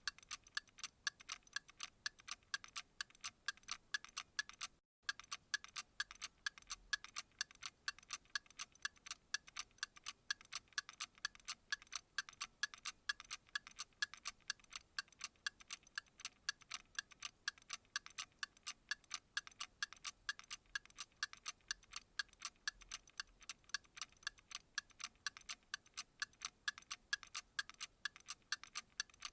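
A clock ticking steadily at an even, quick rate, each tick sharp and light. There is a brief dropout about five seconds in.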